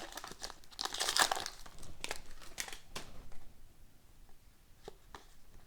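Hockey card pack wrapper being torn open and crinkled by hand for the first few seconds, followed by a few faint ticks as the cards are handled.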